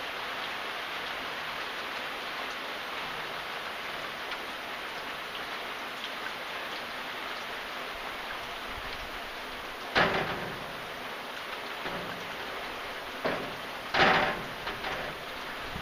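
Steady rain falling, an even hiss. Sudden louder knocks cut through it about ten seconds in and again twice near the end, the second of these the loudest.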